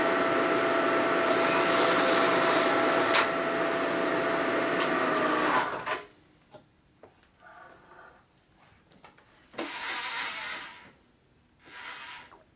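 Lagun vertical milling machine's spindle running with a fly cutter, a steady machine noise with a few fixed tones, then switched off about six seconds in, its tone sliding down as it stops. After that come a few short, light clanks and rustles of work being handled on the mill table.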